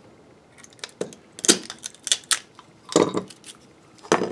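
Utility knife cutting and prying at PLA 3D-print support material: irregular sharp clicks and small cracking snaps, with a louder knock near the end.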